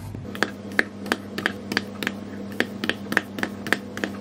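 A thin skewer pricking holes all over a baked sponge cake in its tin, with a short, sharp click at each prick, about three a second. A steady low hum runs underneath.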